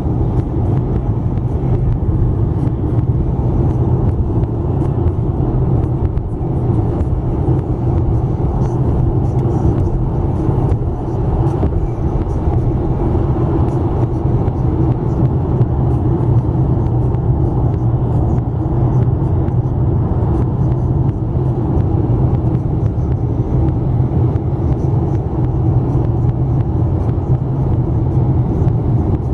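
Steady road noise inside a moving car's cabin at highway speed: tyre and engine noise at an even level.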